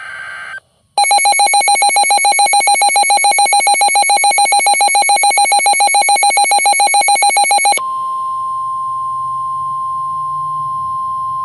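Emergency Alert System tones on NOAA Weather Radio, announcing an incoming warning. First the tail of a buzzy SAME data burst; then, about a second in, a loud, rapidly pulsing two-tone attention signal for about seven seconds. Near the end it switches abruptly to a steady single-pitch weather-radio alarm tone.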